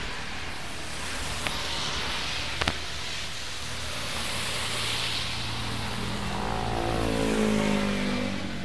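Heavy rain with vehicles passing on a flooded road: tyres hiss through the water as they go by, swelling twice. Near the end a motorbike engine passes, its pitch falling as it goes.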